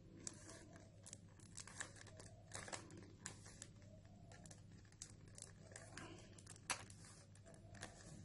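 A 3×3×3 Rubik's cube being turned by hand through a move sequence: a string of faint, irregular plastic clicks and rattles as its layers turn.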